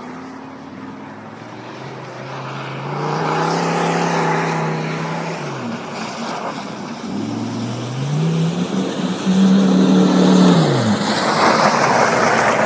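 Dodge Ram's 8.0-litre V10 revving hard as the pickup accelerates toward and past, its pitch climbing and then dropping twice. It ends in a loud rush of tyre and spray noise as the truck passes close, throwing up mud.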